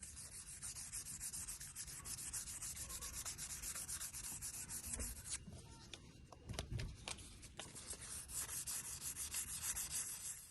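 Sandpaper rubbed by hand over a wooden kitchen-knife handle in rapid back-and-forth strokes. There is a brief pause with a couple of low knocks a little past halfway.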